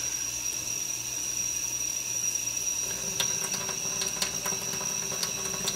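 Kitchen tap water running steadily into a stainless-steel sink while a beheaded sturgeon is handled under the stream, with a few light clicks about three, four and five seconds in. A thin, steady high-pitched whine sits over the water.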